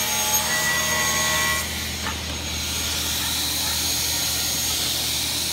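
Industrial sliding table saw running, its blade cutting a board guided by a clamped template. A higher whine in the first second and a half then drops away, leaving the steady hum and hiss of the saw.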